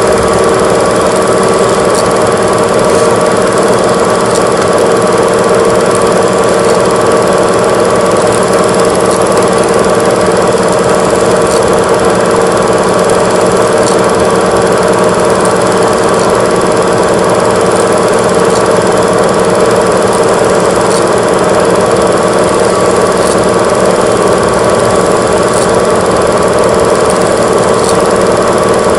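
Old Super 8 film camera running: a loud, steady mechanical rattle with faint ticks now and then.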